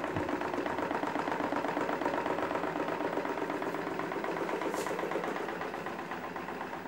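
Electric stand fan running, a steady whirring hum with a fast, even flutter, along with other desk fans running. It grows a little quieter near the end.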